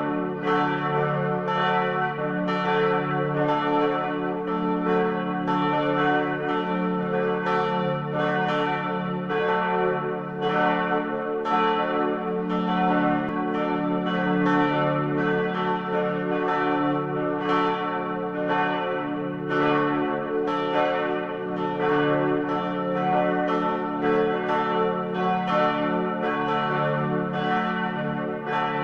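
Several church bells ringing in a steady, unbroken succession of strikes, each bell's note ringing on and overlapping the next.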